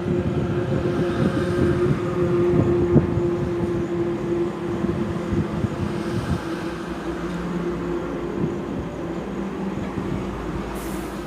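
Heavy truck running as it passes close by: a deep engine rumble with a steady droning note, loudest in the first few seconds, then slowly fading.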